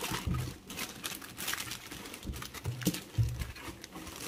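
Packaging being handled as a small underseat subwoofer is unboxed: rustling and crinkling with a few soft knocks and thuds.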